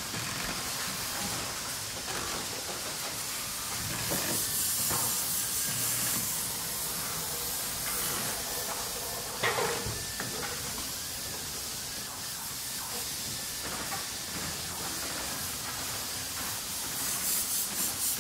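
Factory production ambience: a steady hiss of machinery, with bursts of fluttering high hiss like air or steam releases around four seconds in and again near the end, and a single sharp knock about nine and a half seconds in.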